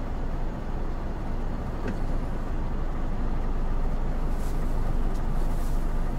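Semi-truck's diesel engine running steadily as the truck is manoeuvred to couple a semitrailer, with two short hisses near the end.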